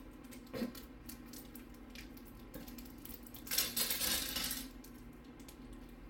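Small metal screws and nuts clinking and rattling in a plastic parts bag as it is handled, with a brief rustle about half a second in and a louder rattle lasting about a second a little past halfway.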